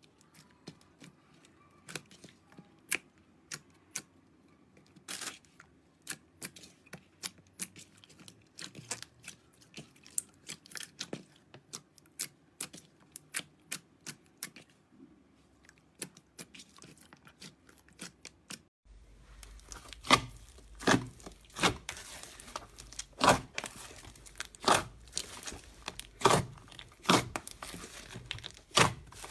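Slime being squeezed and worked by hand, giving sparse sticky clicks and small pops. About two-thirds through it switches to louder, denser crackling crunches with a strong pop roughly every second.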